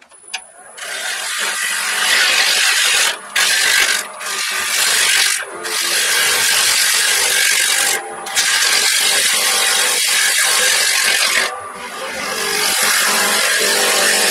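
Turning tool cutting a spinning end-grain wood blank on a lathe: a loud steady hiss of shaving wood that starts about a second in and breaks off briefly about five times as the tool is lifted from the wood.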